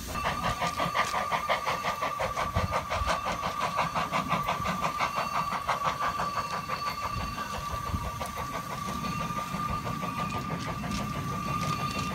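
Narrow-gauge steam locomotive working a passenger train, its exhaust chuffing in an even beat of about four to five a second, with a steady high tone over it.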